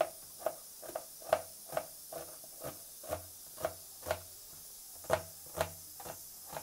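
Kitchen knife slicing a red onion on a plastic cutting board: an even run of knocks, about two a second, each as the blade goes through into the board.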